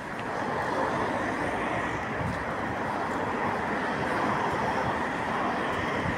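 Steady street traffic noise from passing cars, a continuous wash with no distinct engine or horn, rising a little about half a second in.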